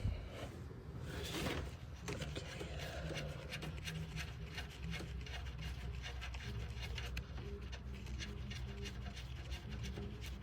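Rapid small metallic clicks and rubbing as loosened 12 mm nuts are spun off their studs by hand, over a steady low hum.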